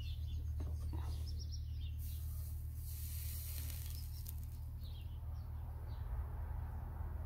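Soldering iron hissing for about two seconds, starting about two seconds in, as it melts solder and flux to fix a new carbon brush into an electric pump motor's brush holder. Birds chirp in the background over a steady low hum.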